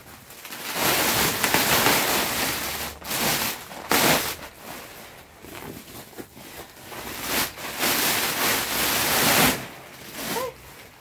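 Large woven plastic sack rustling and crinkling as it is lifted and handled, in long noisy stretches, with a sharp crackle about four seconds in.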